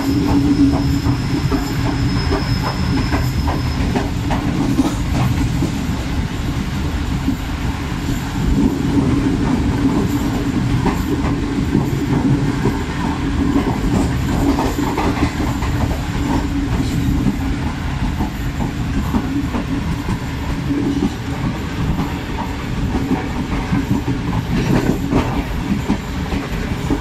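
Pakistan Railways Awam Express passenger coach running along the track, heard from inside by an open window: a steady rumble of steel wheels on rail with irregular clicks and knocks over the rail joints. A faint high wheel squeal sounds over the first few seconds.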